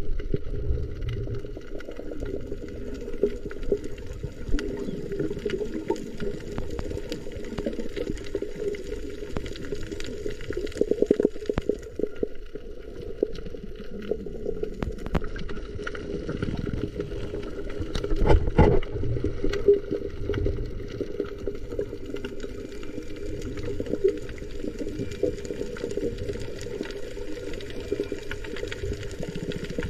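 Muffled underwater sound recorded while swimming over a coral reef: a steady low rumble of moving water with scattered sharp clicks throughout, and a louder swell of low noise about eighteen seconds in.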